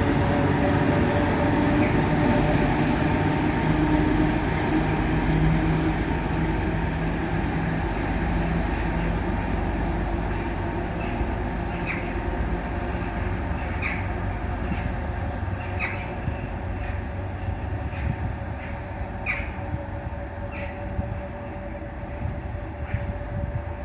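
Running noise of a DDB1 diesel multiple unit under way, heard from inside the car: steady engine and wheel-on-rail noise that gradually gets quieter. In the second half, short high squeaks or clicks come every second or two.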